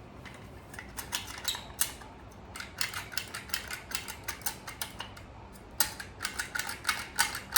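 Small metal parts of a Daisy Red Ryder BB gun's shot tube assembly clicking and clinking as they are handled while the spring and spacers go on the rod. Light clicks come in quick runs, starting about two and a half seconds in and again near the end.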